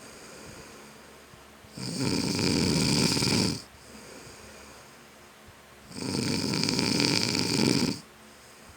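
A sleeping man snoring: two loud snores, each about two seconds long, coming about every four seconds with quieter pauses between.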